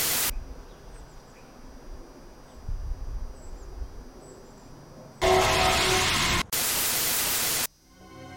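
Bursts of television static hiss that cut in and out abruptly. A short burst comes at the start, a quieter hiss with a low rumble follows, and two longer, louder bursts come back to back from about five seconds in, separated by a split-second break.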